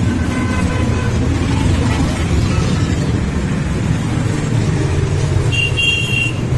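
Many motorcycle engines running together in a steady low drone as a large group of bikes rides by. Near the end comes a short high-pitched beep.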